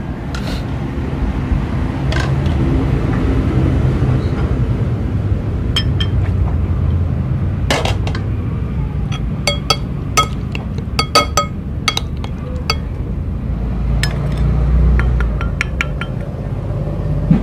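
A metal spoon clinking against a ceramic bowl as a fish paste is worked: a scattered run of light, ringing clinks that comes thickest past the middle and again near the end. A steady low rumble runs underneath.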